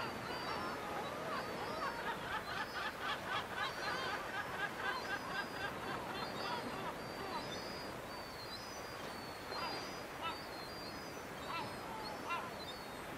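Gulls calling: a quick run of repeated calls about two to six seconds in, then single downward calls, over a steady background hiss.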